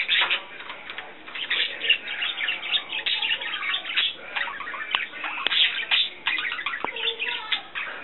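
Pet budgerigars warbling and chattering: a continuous run of fast chirps and twitters, with a few sharp clicks mixed in.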